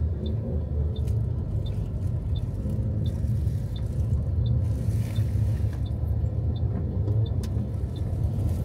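Engine and road rumble inside a moving taxi's cabin, with a light, regular tick about twice a second.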